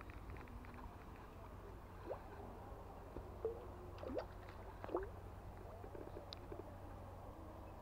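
Faint, steady low rumble with scattered light clicks near the start and a few short rising chirps about two, four and five seconds in.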